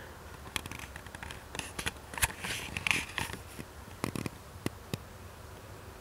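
Handling noise from a handheld camera being moved: scattered light clicks, taps and rustling, with the sharpest tap a little over two seconds in.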